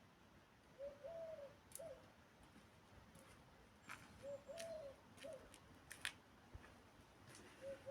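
A dove cooing faintly, a three-note phrase of a short coo, a longer arched coo and a short coo, repeated about every three and a half seconds. Several sharp clicks fall between the phrases.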